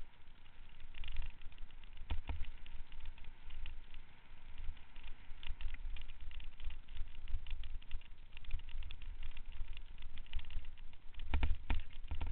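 Bicycle riding fast down a rough dirt trail: wind buffeting the microphone, with the bike rattling and tyres crunching over dirt and stones in many small clicks and knocks, and a cluster of harder knocks near the end.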